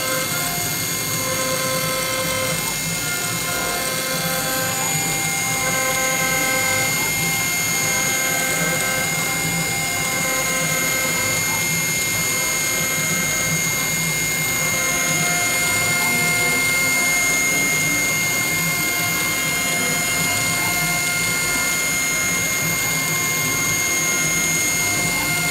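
CNC milling machine spindle running with a steady high whine while a small end mill cuts a bone guitar-nut blank.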